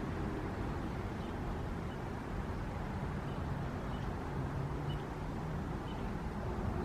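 Steady low outdoor rumble of wind and distant traffic, with a faint engine hum in the middle and a few faint high peeps.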